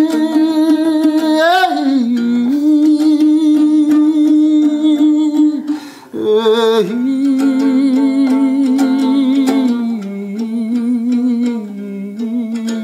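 A man singing a Kyrgyz folk song in long held notes with wide vibrato, accompanying himself on a komuz, the fretless three-string Kyrgyz lute, strummed underneath. The voice breaks off briefly about six seconds in, then a new phrase starts high and slides down.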